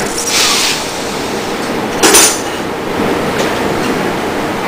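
Oxyhydrogen (HHO) gas from a home-built electrolyser burning at a brass torch nozzle: a steady hiss broken by loud, sharp pops, one about half a second in and another about two seconds in.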